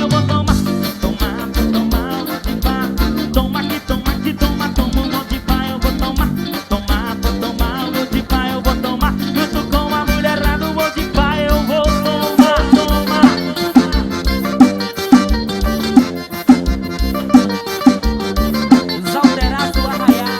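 Forró music: an accordion melody over a steady, fast, evenly pulsing bass beat.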